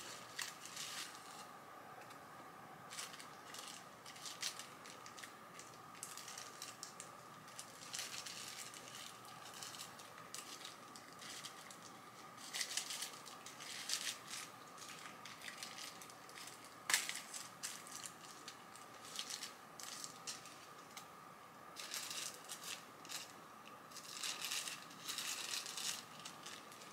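Soft, intermittent rustling and crinkling of packaging being unwrapped by hand, a paper wrapping and a cloth pouch, with a few sharper crinkles here and there.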